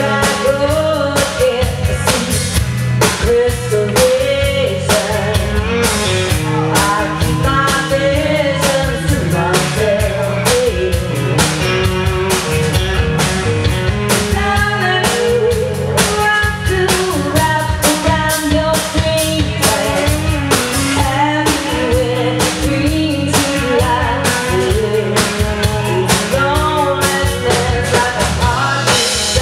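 A live rock band playing a song: a woman singing over electric guitars, bass guitar and a drum kit.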